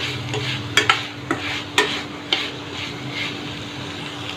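Spatula stirring onions, sweet corn and ginger-garlic paste frying in a pan, with a steady sizzle. There are about four sharp knocks of the spatula against the pan in the first half.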